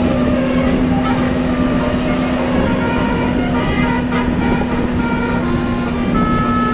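Bus engine running with a steady low hum, while a musical telolet horn sounds short notes of changing pitch over it, ending in a quickly repeated note near the end.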